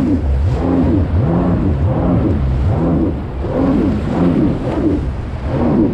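Jet ski engine running hard, its pitch swinging up and down over and over, about once a second.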